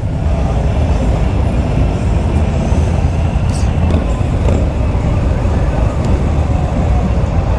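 Harley-Davidson V-twin motorcycle engines running steadily as a large group rides together, the low exhaust beat of the nearby bikes loudest.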